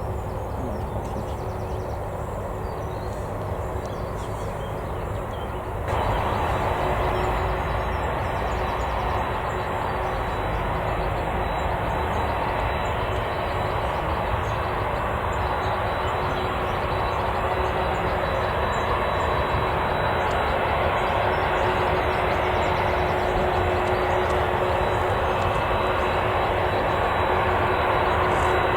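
Jet airliner engines running close by: a steady rumble with a constant high whine. The sound jumps louder about six seconds in and then slowly swells.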